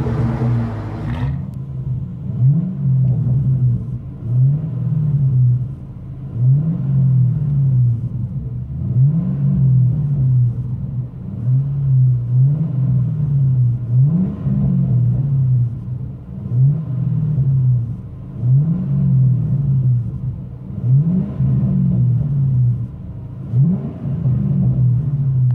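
2010 Ford Mustang GT's 4.6-litre V8 through a custom exhaust with Race Demon mufflers: a brief idle at the tailpipe, then, heard from inside the cabin, the stationary engine is revved again and again, each rev rising and falling back about every two seconds.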